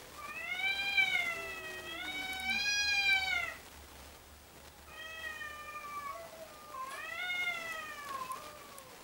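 Two tomcats yowling at each other in a territorial standoff, typical of the March mating season. There are three long, wavering wails, the first the longest and loudest. A lower, falling moan sounds under the first wail.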